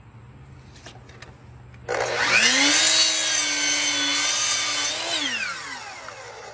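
Electric power saw starting about two seconds in, spinning up and cutting through a wooden form stake for about three seconds, then winding down with falling pitch as the blade coasts to a stop.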